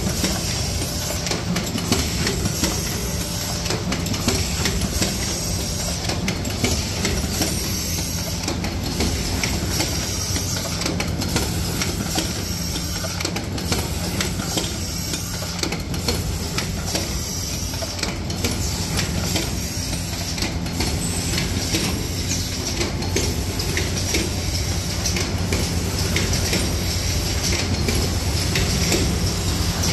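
Octagonal paper tray forming machine running: a steady mechanical clatter with regular clacks as the forming press cycles, over a steady hum.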